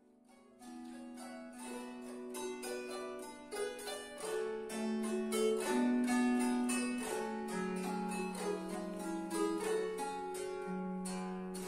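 Gusli, a wooden plucked psaltery, played live with the fingers of both hands: a melody of separate plucked, ringing notes over lower held notes, starting about half a second in.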